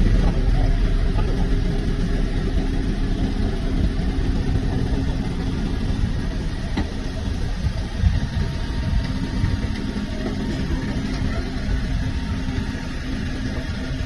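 Backhoe loader's diesel engine running steadily under load while the rear backhoe arm digs and swings, with a single knock about eight seconds in.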